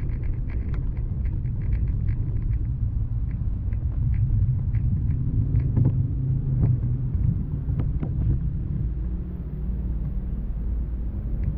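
Low, steady rumble of a bicycle rolling over wet pavement, picked up through the bike-mounted camera, with many light ticks and clicks, thickest in the first few seconds and a few sharper ones a little past halfway.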